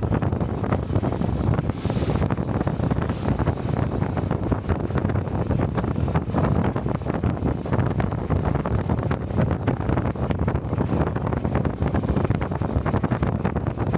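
Honda Cub 125's single-cylinder four-stroke engine running as the motorcycle rides along, under steady wind buffeting on the helmet-mounted microphone.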